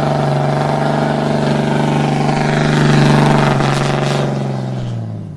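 Straight-piped 6.7-litre Cummins diesel exhaust of a 2019 Ram 2500 running steadily and loud, swelling slightly about three seconds in, then fading away near the end.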